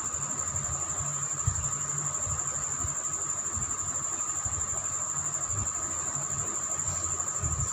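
Crickets trilling steadily in a high, finely pulsing tone, over a low uneven rumble.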